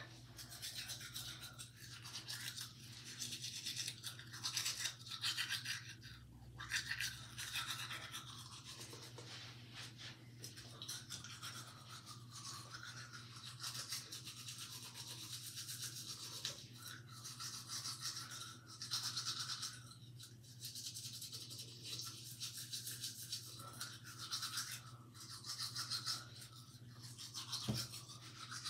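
Manual toothbrush scrubbing against teeth in uneven bursts, with a steady low hum underneath.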